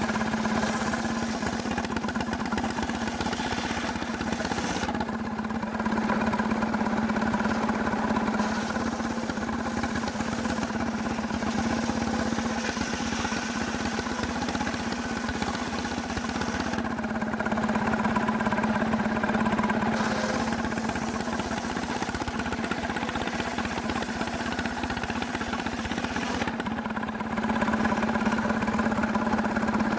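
Engine of a sawmill running steadily with a constant drone. The loudness swells and eases every several seconds, as if under changing load.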